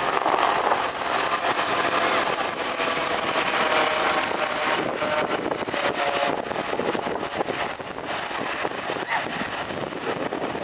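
Formation of five Eurocopter EC120 Colibri helicopters flying overhead: a steady rush of rotor and turbine noise, with faint whining tones showing through in the middle.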